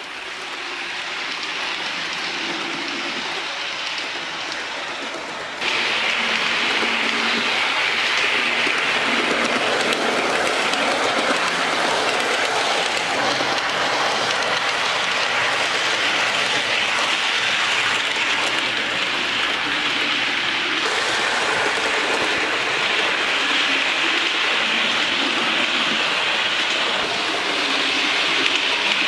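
Hornby Eurostar model train running around a layout: a steady whirring rattle of its motor and wheels on the track. It gets suddenly louder about six seconds in.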